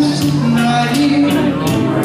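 Loud dance music with a steady beat and a held melody line.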